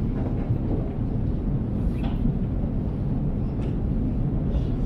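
Steady low rumble of a long metro escalator running, with a few faint clicks.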